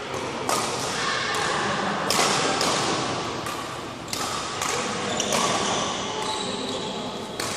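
A run of sharp knocks, about one every half second to a second, echoing around a large indoor sports hall as people play on the court.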